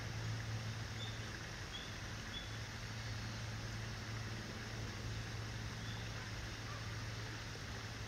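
Steady low background hum of outdoor ambience, with four faint, very short high chirps from small birds scattered through it.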